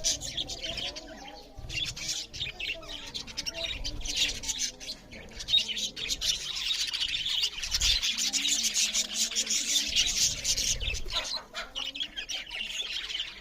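A flock of budgerigars chattering and chirping continuously, with a few dull thumps.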